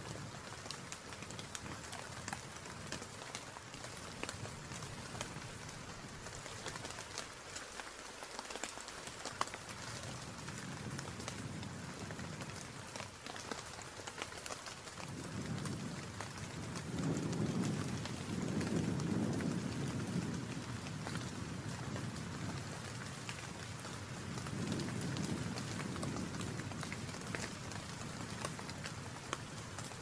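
Steady rain with a fine patter of drops, joined by low rumbling swells about halfway through and again near the end.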